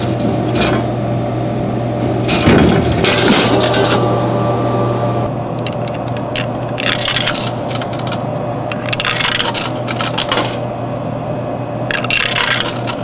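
Small battery vibrator buzzing steadily, with bursts of rattling and clinking every few seconds as it vibrates against something hard.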